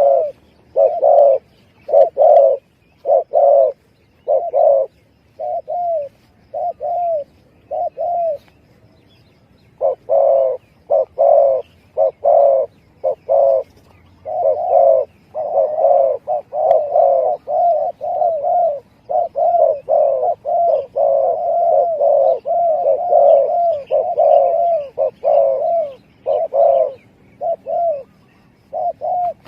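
Spotted dove (tekukur) cooing: short, pitched coos repeated in phrases, pausing for a couple of seconds about a third of the way in, then coming close together and almost continuous before spacing out again near the end.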